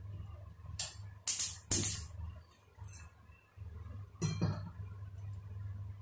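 Clinks and knocks of a steel pot being set down on a gas stove's burner grate, a handful of sharp metal strikes with the loudest pair about a second and a half in.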